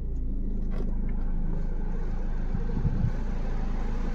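Ford EcoSport's four-cylinder diesel engine idling steadily, heard from inside the cabin, with the climate-control fan's air hiss filling in from about a second in. A faint click comes about a second in, and a few dull bumps come just before three seconds.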